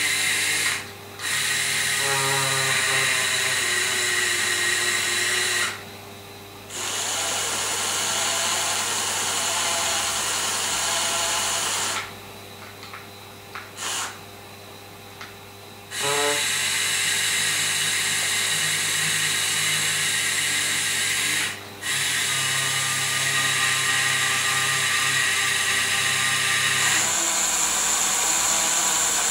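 Small electric motor of a Faller model container gantry crane running with a steady whine over a low hum. It cuts out and restarts four times, once for several seconds in the middle.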